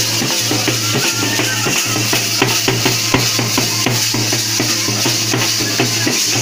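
Live drumming for dancing: fast, dense drum strikes with a rattling shimmer on top and a steady low hum underneath.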